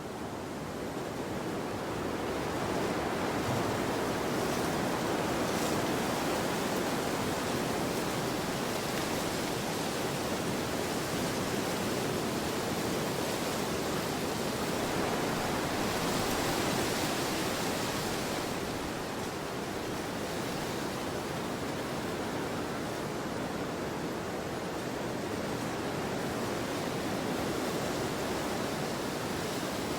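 Wind blowing as a steady rushing noise that swells over the first few seconds and again a little past the middle, when it takes on a brighter hiss.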